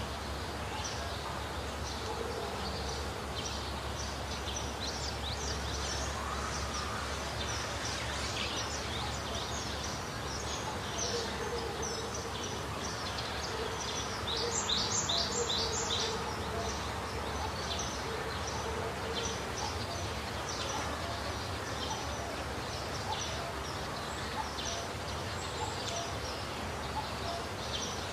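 Birds chirping and calling over steady outdoor background noise, with a short run of louder, rapid chirps about halfway through.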